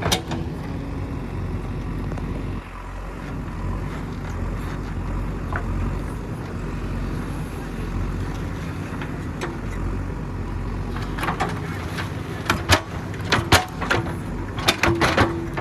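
A JCB 3DX backhoe loader's diesel engine running steadily while it digs. In the last few seconds come a series of sharp knocks and clanks.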